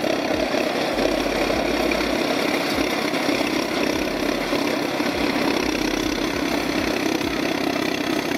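Engine of a tracked snow-clearing bulldozer running steadily as it works through deep avalanche snow.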